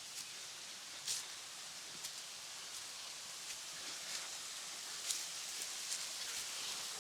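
Footsteps scuffing and crunching on a leafy forest trail, with a few sharper steps, over a steady rushing hiss.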